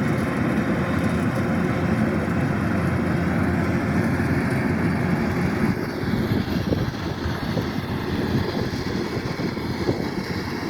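Kubota DC-108X combine harvester running steadily, a dense low drone of its diesel engine and machinery that eases slightly a little past halfway.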